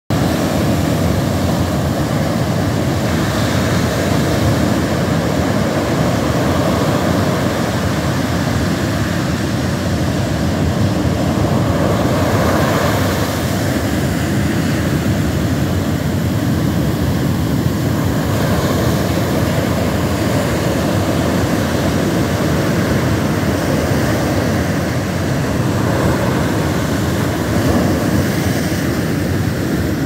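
Pacific Ocean surf breaking on a sandy beach: a steady low roar of waves, swelling louder every several seconds as the breakers come in.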